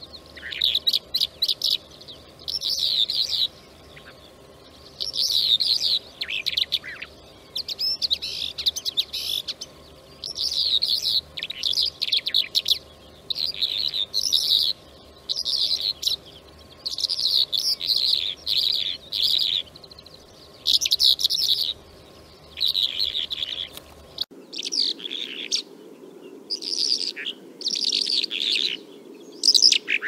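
Bimaculated lark singing: a long run of short, high, chirping phrases with brief pauses between them. The background noise changes abruptly about 24 seconds in, as one recording gives way to another.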